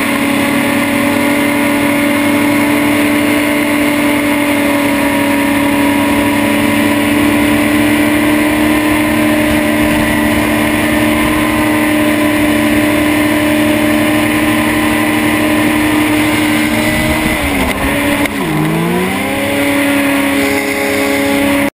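Racing hovercraft's engine and lift/thrust fan heard from on board, running at steady high revs over rushing noise. About seventeen seconds in the revs drop sharply and climb back up over a couple of seconds.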